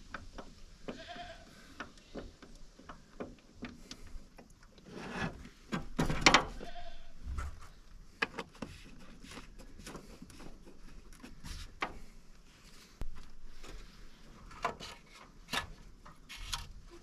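Farm animals bleating faintly now and then, among scattered clicks and knocks from handling the oil jug and filler while topping up the tractor's engine oil.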